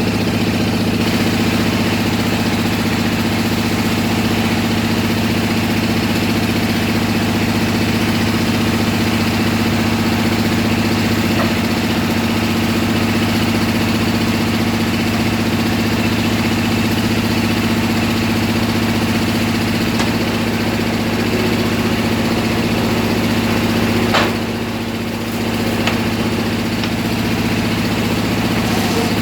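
A bored-pile drilling rig's engine running at a steady speed with an even hum. About three-quarters of the way through, a sharp click is followed by a brief dip in the engine sound before it picks up again.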